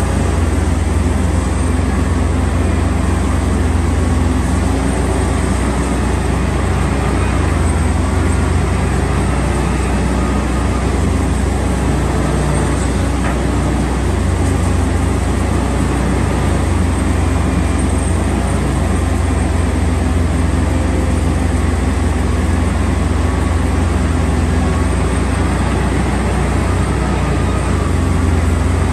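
Steady, unchanging low rumble of a road vehicle running, with no distinct events.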